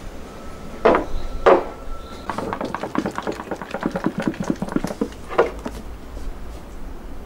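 Two glass tumblers knocked down onto a wooden tabletop, then liquid sloshing rapidly back and forth in a large plastic bottle as it is shaken, about seven times a second for some three seconds, ending with another knock.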